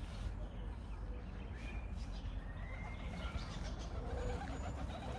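Birds calling, with a pigeon's wavering coo near the end, over a steady low rumble.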